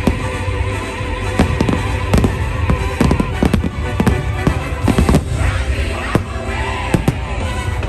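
Fireworks bursting in quick succession, many sharp bangs a second, over loud orchestral show music.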